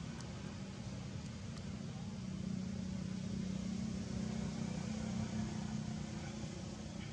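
A steady low engine drone, like a motor vehicle running, swelling louder about two to six seconds in.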